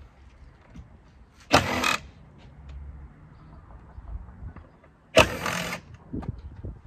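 Cordless drill-driver whirring in two short bursts, about three and a half seconds apart, as it backs out Torx screws from the cabin filter housing. A few light clicks follow.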